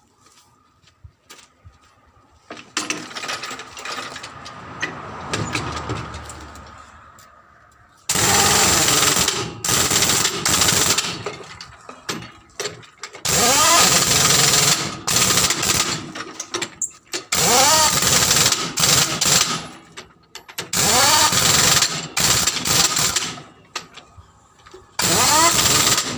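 Power tool running in repeated loud bursts of a few seconds each, with a hiss, its pitch rising as it spins up at the start of several bursts.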